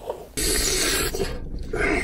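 Close-up eating noises from a man chewing and working food in his mouth, loud and uneven, starting abruptly about a third of a second in.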